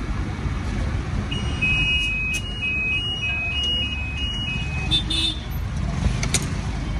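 Steady low rumble of road traffic. From about a second in, an electronic beeping tune alternates between two high notes for roughly three and a half seconds. A few short clicks are heard.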